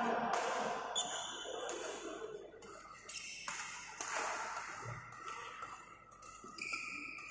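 Badminton rally in a large hall: a series of sharp racket strikes on the shuttlecock, roughly one a second, each echoing, with short high squeaks of shoes on the court mat.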